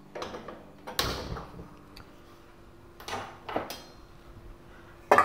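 A kitchen vessel being handled: a few short clattering knocks as it is moved and set down, the sharpest about a second in and another right at the end.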